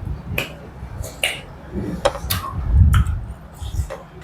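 Close-miked eating: a person chewing a mouthful of pork curry and rice, with sharp wet lip smacks and mouth clicks every half second to a second over low, uneven chewing sounds.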